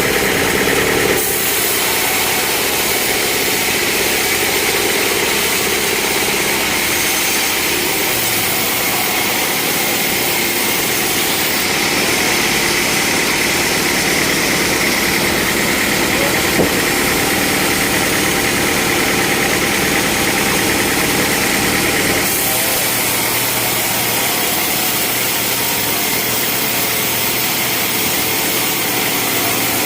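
Sawmill machinery running steadily under an engine, a continuous mechanical hum and whine that shifts abruptly in tone a few times.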